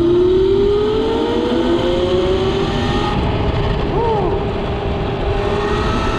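6000-watt 72-volt electric hub motor on a mini bike whining under hard load, its pitch rising as the bike accelerates for the first couple of seconds and then holding steady. Wind rushes on the microphone throughout.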